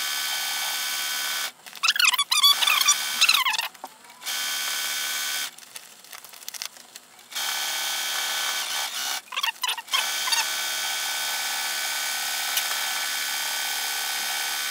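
Domestic sewing machine stitching appliqué at a steady speed, stopping and starting again several times.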